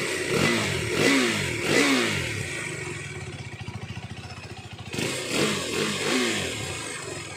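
KTM RC 390's 373 cc single-cylinder engine heard at its exhaust, idling and then blipped three times in quick succession before settling back to idle. It is blipped again two or three times about five seconds in.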